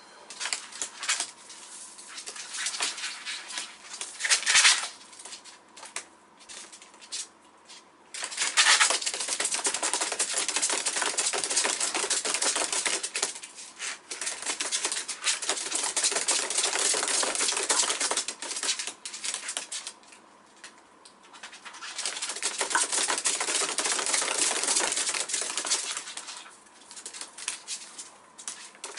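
Two prairie dogs running in a wire-mesh drum exercise wheel: a rapid, dense clatter of claws on the mesh and the turning wheel, like typing. Sparse clicks at first, then long spells of fast pattering broken by short lulls where the running slows.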